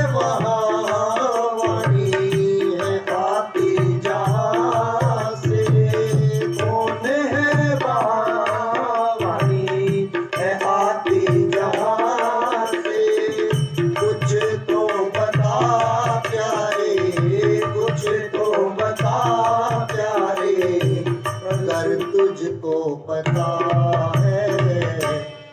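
Instrumental interlude of a Hindi bhajan: tabla keeps a steady rhythm under a wavering, ornamented melody line. The music dips briefly right at the end.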